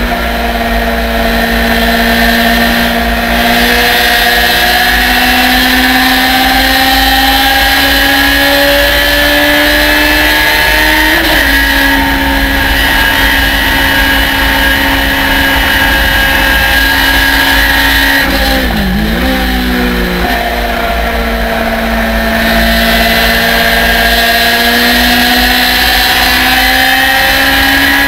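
Thunder Roadster race car's engine heard from the open cockpit, pulling hard under load with a steady wind rush. The revs climb slowly, drop at an upshift about eleven seconds in, dip and come back around a lift and downshift near nineteen seconds, then climb again.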